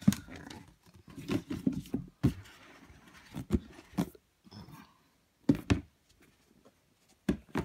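Hands handling a cardboard shoebox, its lid and tissue paper: a string of soft knocks and thumps with brief rustling, separated by short pauses.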